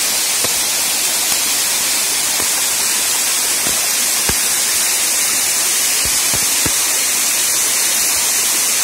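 Waterfall spilling down a rock face onto rocks and into a pool: a steady hiss of falling, splashing water, with a few faint ticks.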